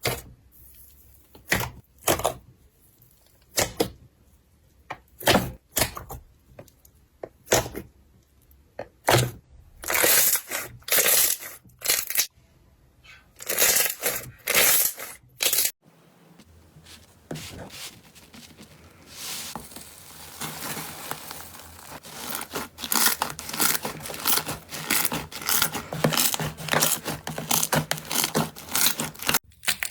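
Slime being worked by hand, giving a series of separate sharp crackles and pops. About halfway through it changes suddenly to a dense, continuous crunchy crackling.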